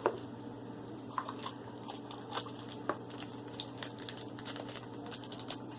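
Thin plastic blind-bag toy packaging crinkling in quick, scattered crackles as it is handled and opened.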